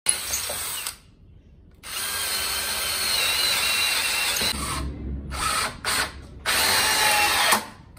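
Einhell 18 V cordless drill/driver boring into hardwood in bursts with a motor whine. A short burst comes first, then a run of nearly three seconds after about a second's pause, then a few short bursts near the end.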